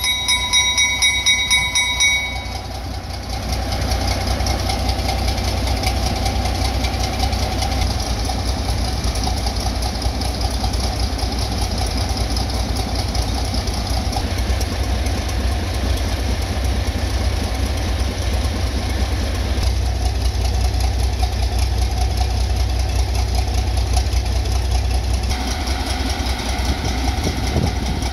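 Small diesel switcher locomotive idling with a steady low rumble. A train horn holds one note over it and stops about two seconds in.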